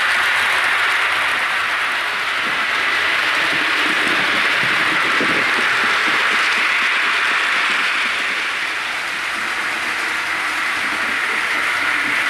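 A Hornby OO-gauge 'Lord Nelson' model steam locomotive and its coaches running at speed. The sound decoder's recorded steam exhaust plays through the model's small built-in speaker, mixed with the wheels rattling over the track, and the two blend into a steady hiss-like clatter.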